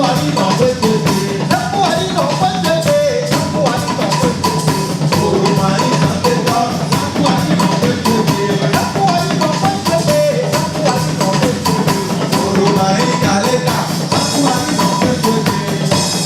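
Music with a steady drum-kit beat and a wavering melody line.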